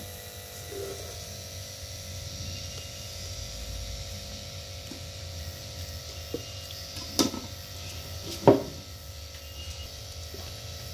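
Low steady hum with a few scattered knocks, the loudest about eight and a half seconds in: a spoon and a wooden pestle knocking against a mortar as a moist palm-sugar and coconut mixture is worked in it.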